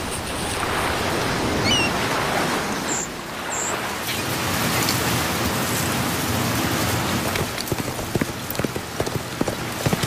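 Steady rain falling, with a few short high chirps about two and three and a half seconds in, and separate drop ticks standing out more clearly from about seven seconds in.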